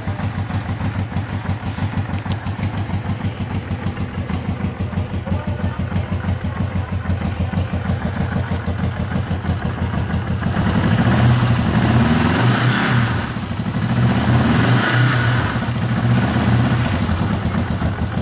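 1974 Honda CL450 Scrambler's parallel-twin engine idling with an even pulse, running for the first time in about 30 years. From about ten seconds in, the throttle is blipped and the revs rise and fall a few times before settling back to idle near the end.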